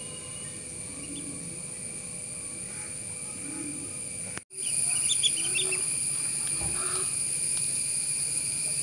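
Ducklings peeping in short high chirps over a steady, high-pitched drone of insects. The sound drops out for an instant about halfway through, then comes back louder.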